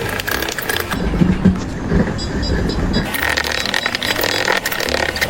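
A vehicle or machine engine running, with an abrupt change in the sound about three seconds in.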